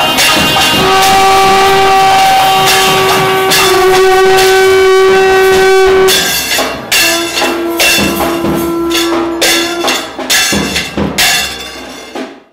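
Temple music: a nadaswaram-like reed horn holds two long notes, the second lower, over rapid percussion strikes that grow denser in the second half. The sound cuts off abruptly at the end.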